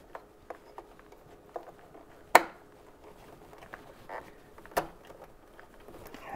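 Scattered clicks and knocks as a metal resistor bracket is forced into place behind a plastic cover on a Can-Am Spyder F3. The loudest is a sharp click about two and a half seconds in, with another knock near five seconds.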